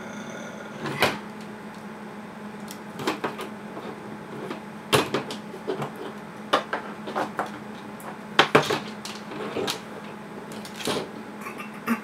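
Stripped copper wires being handled and twisted together by hand into a splice: irregular small clicks and rustles of wire and insulation, with a steady low hum underneath.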